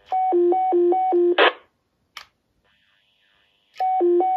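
The fifth roger-beep setting of a President George II CB radio, heard over a receiving CB: a tone flipping between a higher and a lower pitch about three times in a second, cut off by a short burst of static as the carrier drops. A click follows, then a stretch of open-channel hiss, and the same beep starts again near the end.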